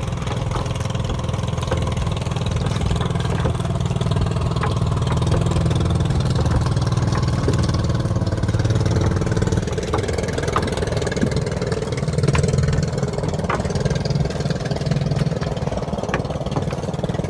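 Small pumpboat engine idling steadily, with a few faint light knocks over it.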